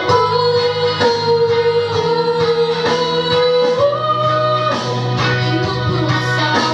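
A female voice singing, holding one long note for several seconds before moving higher, over a guitar accompaniment.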